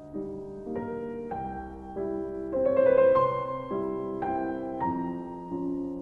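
Background piano music: a slow melody of held notes and chords changing about every half second, loudest about three seconds in.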